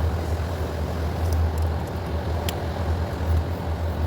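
A steady low rumble runs throughout, with a few light metallic clicks about one and a half and two and a half seconds in as fuel injectors are worked off a removed fuel rail.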